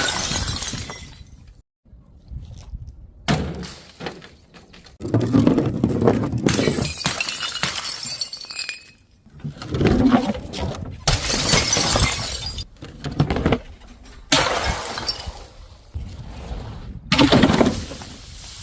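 Glass bottles shattering one after another: a series of about six or seven loud breaking-glass crashes, each trailing off in crunching, tinkling shards.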